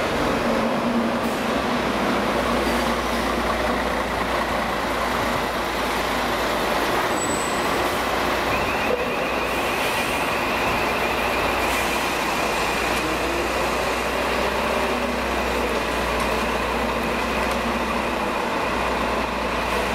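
MAN garbage truck's diesel engine running as the truck manoeuvres slowly, a steady low drone with a thin high whine joining about nine seconds in.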